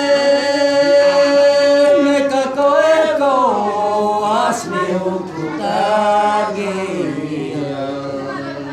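A man's voice singing a traditional Manggarai song (dere) unaccompanied, in a chanting style: one long held note for the first two seconds or so, then phrases that slide up and down in pitch.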